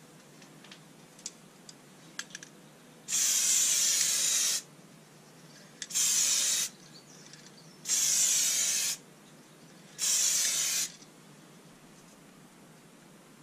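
An aerosol spray can spraying in four separate bursts of hiss, each about a second long. A few faint clicks come just before the first burst.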